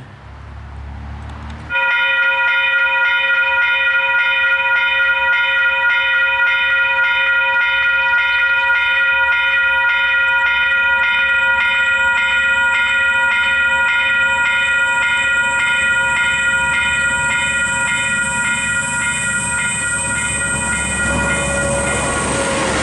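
Western Cullen Hayes electronic level-crossing bells start up suddenly about two seconds in and ring steadily and continuously, warning of an approaching train. Toward the end the rumble of the oncoming train builds under the bells.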